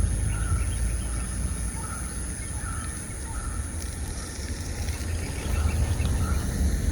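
Outdoor ambience: a steady low rumble under short, repeated bird chirps, each on much the same pitch, coming every half-second to second.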